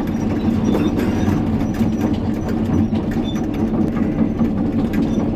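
Hitachi 890 excavator's diesel engine running steadily with faint knocking and clatter, as the machine travels on its tracks.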